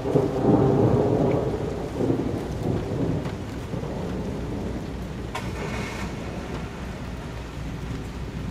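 A clap of thunder rumbling, starting suddenly, loudest in the first two seconds with a second surge about two seconds in, then fading away over steady rain.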